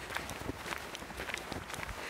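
Footsteps of a person walking on an asphalt road, a run of short scuffing steps.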